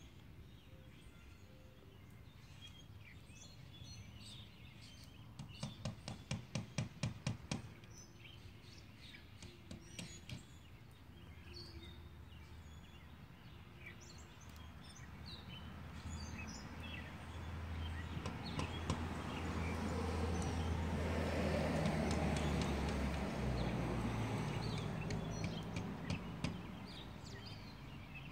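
Outdoor ambience with small birds chirping on and off. About five seconds in comes a quick run of about ten sharp taps, and in the second half a low rumble swells up over several seconds and fades again.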